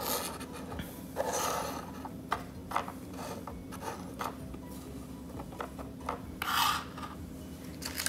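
Black plastic tire levers and a small tube of rubber cement being slid about and set down on a hard tabletop: scattered short scrapes and light knocks, the longest scrapes about a second in and again near the end.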